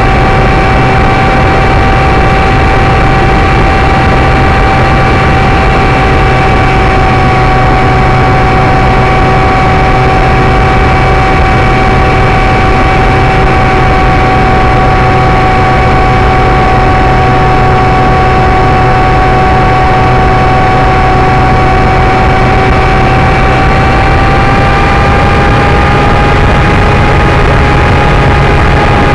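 ParkZone Icon RC seaplane's electric motor and propeller whining at a steady pitch, heard from the onboard camera over loud rushing air noise. The whine rises a little in pitch near the end.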